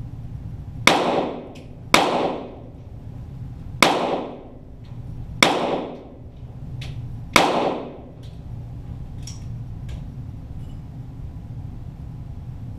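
.22 Walther GSP target pistols firing five single shots at uneven spacing over about six and a half seconds, starting about a second in, each report echoing briefly in the indoor range. Fainter ticks fall between and after the shots over a steady low hum.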